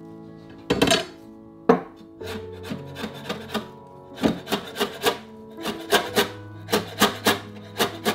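Chef's knife chopping parsley on a wooden cutting board: sharp, uneven knocks of the blade on the board, starting about a second in and coming two or three a second, over soft background music.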